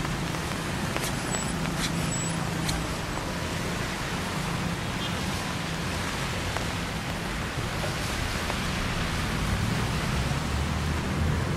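Steady hiss of rain mixed with road traffic, low engine hum of passing vehicles that grows louder near the end. A few sharp ticks in the first three seconds.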